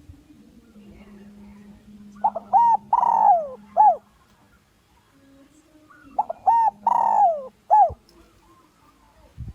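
Spotted dove cooing: two matching phrases about four seconds apart. Each has a few short notes, a long falling note and a short closing note. It is a male's territorial song used as a lure call to draw rival males in to fight.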